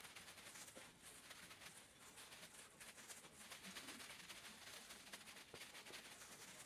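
Near silence with faint crinkling of plastic wrap and disposable plastic gloves, as ground meat is pressed down into a wrap-lined dish.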